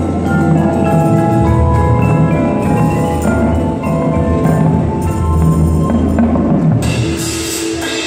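Indoor percussion ensemble playing: marimbas and vibraphones sounding pitched notes over held low bass notes. About seven seconds in the bass drops away and a bright high wash comes in.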